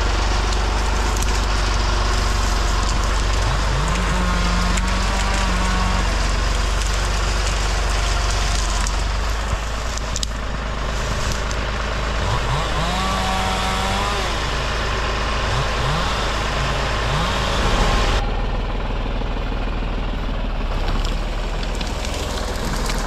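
Engine running steadily with a low drone, with several brief rises in revs that climb and then hold before dropping back.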